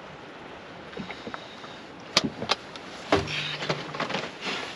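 Tackle being handled on a boat: two sharp clicks about two seconds in, then a knock followed by a brief low drone, over soft background hiss.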